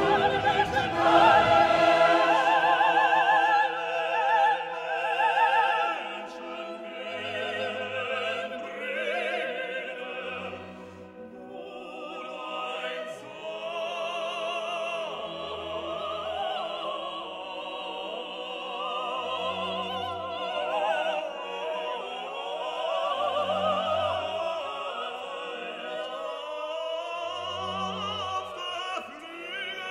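Background music: classical operatic singing over an orchestra, the voice wavering with vibrato, louder for the first six seconds or so and softer after.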